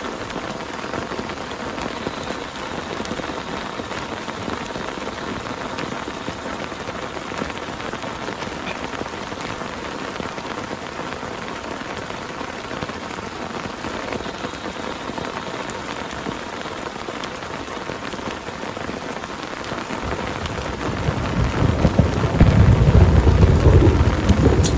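Heavy rain falling steadily, with a deep thunder rumble building up near the end and becoming the loudest sound.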